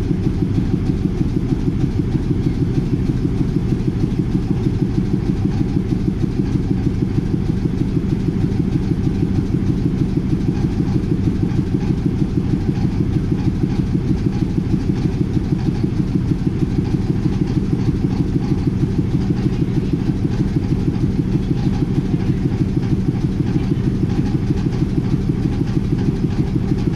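Sri Lanka Railways Class M4 Canadian-built diesel locomotive's engine running at idle, heard close up by the engine hood: a loud, steady, evenly pulsing beat.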